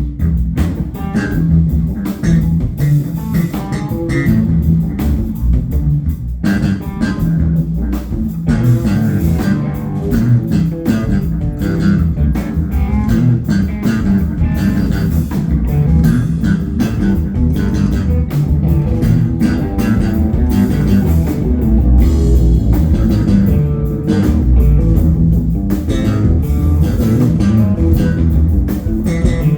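Live funk-rock band playing: electric guitar and bass guitar over a drum kit.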